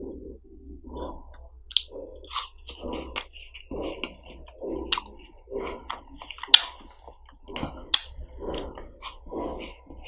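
Close-miked mouth sounds of eating a frozen layered ice lolly: licking and wet chewing, with several sharp cracks as the frozen tip is bitten off. The loudest crack comes about two-thirds of the way through.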